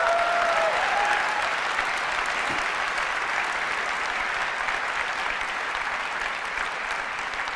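Large auditorium audience applauding, loudest at the start and easing off slowly.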